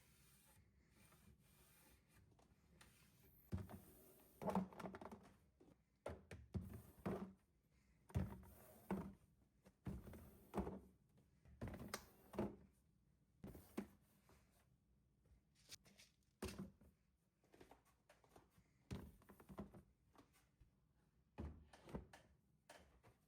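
A run of soft thunks and knocks, roughly one a second, starting a few seconds in, in a small room.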